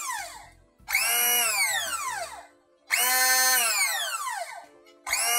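Immersion blender's motor unit, freshly repaired and running without an attachment, switched on in short bursts for a test run: a high whine that falls in pitch with each burst. One burst is dying away at the start and three more follow, about a second, three seconds and five seconds in. The motor works again after a detached motor wire was resoldered.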